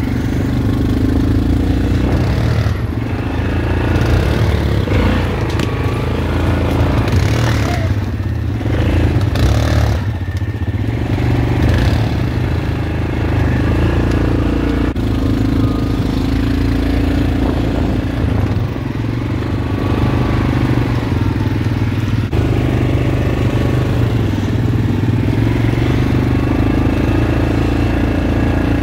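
ATV engines running steadily as the quad bikes push through dense brush, with branches and leaves scraping and clattering against them.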